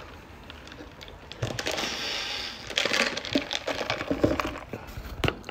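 Handling noise from a phone being held and moved: soft rustling and a few light clicks.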